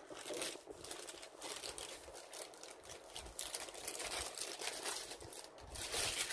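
Plastic bags crinkling and rustling in irregular crackles as a figure and its base are pulled out of them, loudest near the end.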